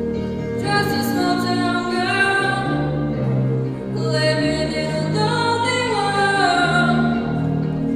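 Singing with instrumental accompaniment: sustained sung phrases over steady low notes, with a new phrase entering about a second in and another about four seconds in.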